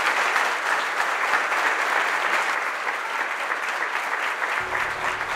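A large audience applauding steadily: a dense patter of many hands clapping.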